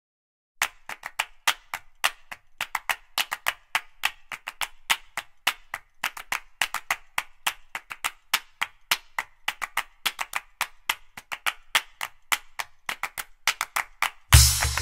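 Background music: after a brief pause, a bare stretch of quick, rhythmic claps and clicks with no bass, several a second. The full beat with drums and bass comes back near the end.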